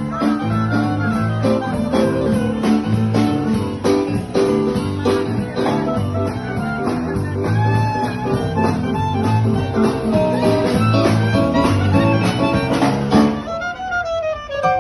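Instrumental music with a steady beat, a break between sung verses of the song. Near the end the beat drops out briefly.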